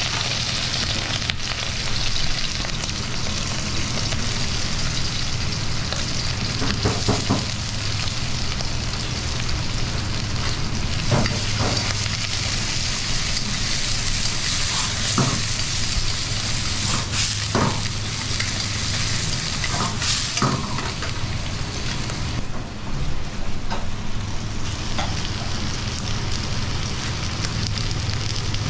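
Meat and vegetables sizzling as they are stir-fried in a carbon-steel wok over a gas flame, with chopsticks knocking against the wok now and then over a steady low hum. The sizzle drops briefly about two-thirds of the way through.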